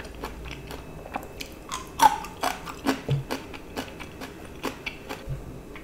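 A woman chewing a mouthful of food, with irregular short mouth clicks, one of the louder ones about two seconds in.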